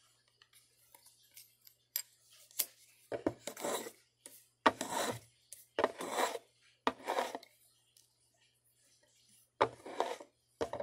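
Short scraping strokes of a hand woodworking tool on small wooden strips, about seven at uneven spacing, with a couple of sharp clicks early on as pieces are handled.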